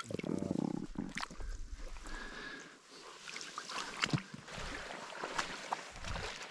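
Shallow water sloshing and splashing as a large fish is handled and pulled loose from a nylon gill net, with scattered short clicks and rustles from the hands and net. The splashing is heaviest in the first second.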